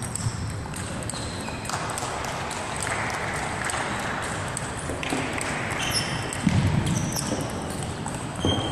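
Table tennis balls clicking off the tables and bats during rallies: many short, sharp ticks at an irregular pace, some with a brief high ring.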